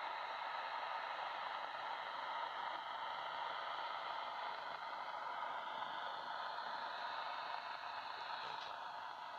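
CRT Superstar 7900 CB radio's speaker giving a steady hiss of band noise on upper sideband, with no station coming through.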